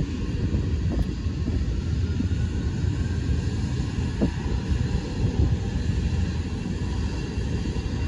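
Four D-18T turbofans of an Antonov An-124-100 running at taxi power: a steady distant rumble with a faint whine. Heavy wind buffeting on the microphone sits over it.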